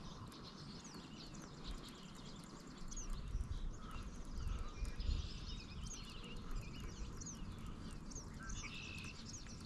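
Small birds chirping faintly, many short quick chirps coming thick and fast from a few seconds in, over a low rumble.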